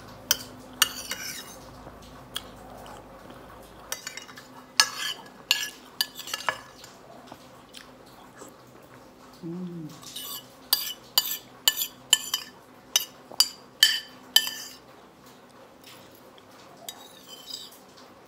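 Metal spoon clinking and scraping against an amber glass soup bowl, many sharp clinks in two runs, as the tilted bowl is scraped for the last of the soup.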